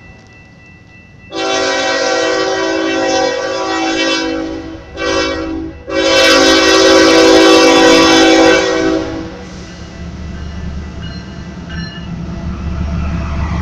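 Diesel freight locomotive's multi-chime air horn blowing a long blast, a short one, then a long, loudest blast, the close of the long-long-short-long grade-crossing signal. After the horn stops, the train rumbles on low and steady.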